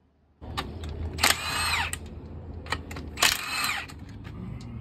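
Impact wrench firing in two short bursts, about a second apart from the start and again near three seconds, each with a falling whine, over a steady low hum with scattered clicks of tool handling.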